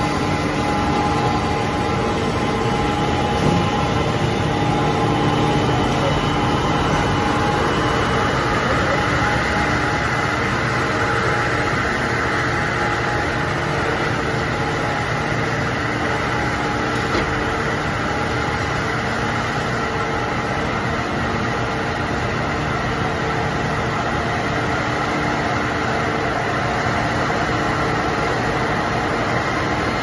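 Steady drone of a billet heating furnace line running, with several steady hum tones under a hiss that grows stronger about eight seconds in.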